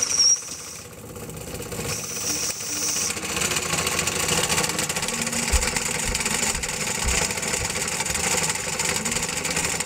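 Solid-fuel-fired Wilesco toy steam engine running steadily, hissing and clattering as it drives a model wood-cutter. A brief high tone sounds at the very start.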